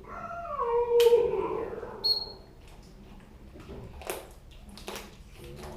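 A cat's drawn-out call, falling in pitch over about two seconds, followed by a few sharp clicks and knocks.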